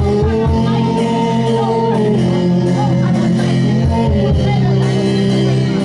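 Live worship music: a sung melody over a band with guitar and drums.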